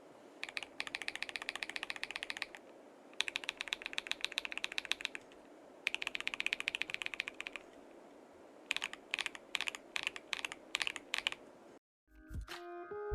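Typing on a mechanical keyboard with stock, unlubed Akko CS Lavender Purple tactile switches, in a gasket-mounted KBD67 Lite case with a polycarbonate plate. There are three bursts of fast typing, then a run of slower single keystrokes. Music starts near the end.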